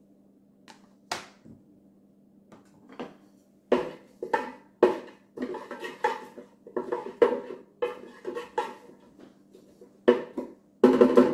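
Wooden spoon stirring onions in the Ninja Speedi's inner pot on sear/sauté: a run of irregular knocks and scrapes against the pot, loudest near the end, over a steady low hum.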